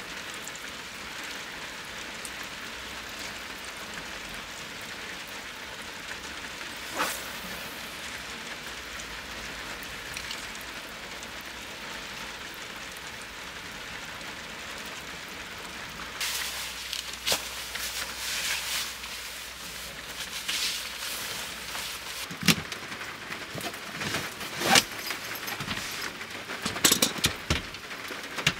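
Steady hiss of light rain. About halfway through, a run of clicks and knocks starts as things are handled by hand, with the loudest knocks near the end.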